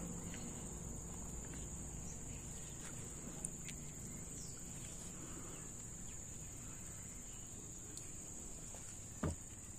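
Steady high-pitched drone of insects, crickets or cicadas, with one short knock about nine seconds in.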